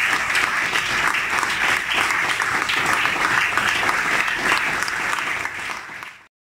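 Audience applauding: dense, steady hand-clapping from a small crowd, easing a little and then cutting off suddenly near the end.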